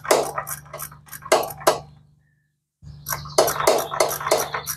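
Metal hand tools clicking and clinking as a wrench is worked on a small engine's cylinder head bolts, several sharp clinks a second over a steady low hum. The sound drops out completely for under a second in the middle.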